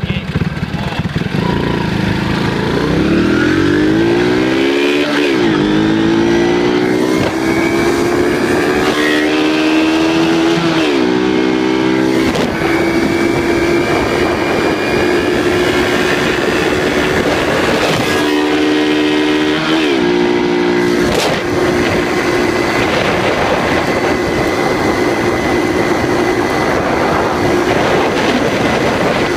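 Two-stroke Yamaha RG motorcycle engine under full throttle, revs climbing steeply and dropping back at two gear changes in the first dozen seconds, then held high at speed with a couple more brief changes. Wind rush over the microphone runs throughout.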